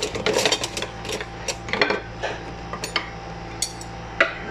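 Kitchen utensils and dishes being handled: an irregular run of quick clinks, clicks and knocks, with a sharper knock near the end, over a faint steady hum.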